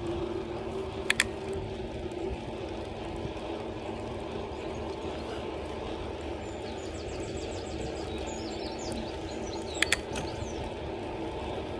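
Bicycle rolling along a tarmac cycle path: steady tyre and riding noise with a faint hum. A sharp double click comes about a second in and again near the end, and a bird trills briefly in the middle.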